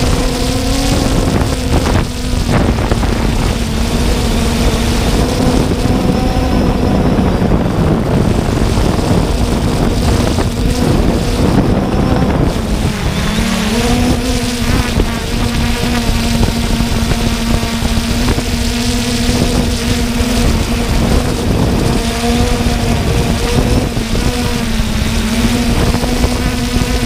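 Quadcopter drone's motors and propellers humming steadily, heard from the drone's own onboard camera, with wind buffeting the microphone. The pitch dips briefly and recovers about halfway through, as the throttle changes.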